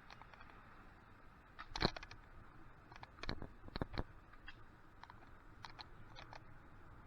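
Scattered faint clicks and knocks over a low steady background, the loudest single knock about two seconds in, with a few more about a second later.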